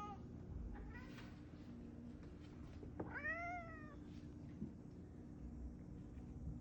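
Domestic cat meowing: a short, small call about a second in, then a longer meow about three seconds in that rises and falls in pitch.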